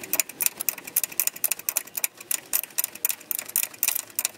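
22 mm ratcheting wrench clicking rapidly as it runs the nut down onto a car's lower ball joint stud, the pin held still with a hex key.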